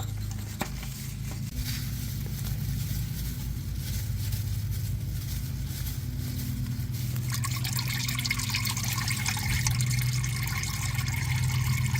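Engine oil trickling and splashing out of a Toyota Tundra's oil filter housing as the filter cap is unscrewed, growing louder about seven seconds in. The oil spills out because the housing was not first drained with its plastic drain fitting. A few clicks come near the start, over a steady low hum.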